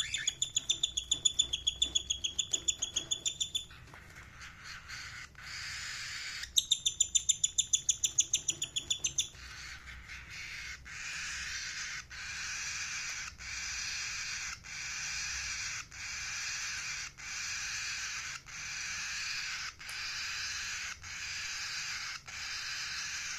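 Indian ringneck parrot giving two fast runs of shrill, sharp calls, about eight a second, the first near the start and the second a few seconds later. After that, a hissy noise repeats about once every second and a quarter.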